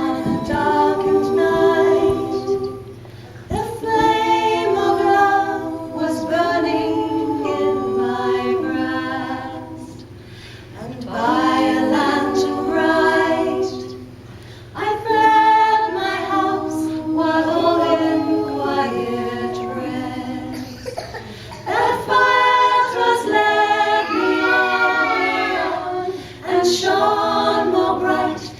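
Voices singing a cappella, in long sustained phrases with short breaks between them.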